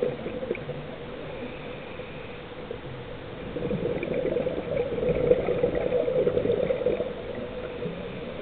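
Scuba diver's exhaled breath bubbling out of the regulator, heard underwater. It is a quieter gurgle at first, then a denser stretch of bubbling from about halfway through that eases off near the end.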